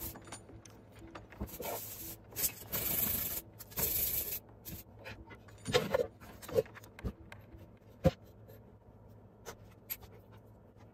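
Scratchy rubbing strokes of a silver coin being polished by hand on #2300-grit abrasive, several in the first four seconds, followed by a few scattered knocks and one sharp click about eight seconds in.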